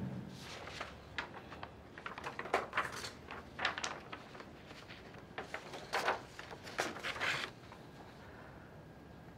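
Sheets of paper being handled and slid across a table: a run of short rustles and scrapes that stops about three quarters of the way through.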